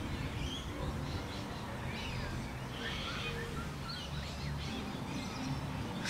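Faint bird chirps over a steady low outdoor background hum.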